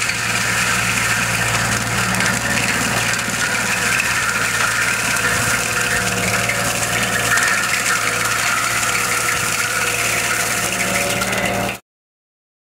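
Skid-steer loader engine running steadily under load, driving a bush mulcher head through dry brush, with a steady engine hum and a noisy, whining rush over it. It cuts off suddenly near the end.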